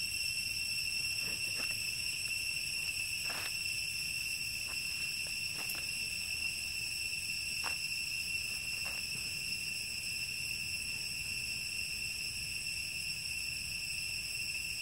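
Steady high-pitched insect drone, several even tones held without a break. A few faint short rustles sound now and then in the first half.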